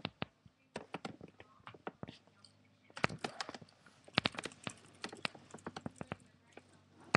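Pet mouse rolling in a plastic exercise ball along a track: irregular light clicks and taps of plastic, several a second, coming thicker after about three seconds.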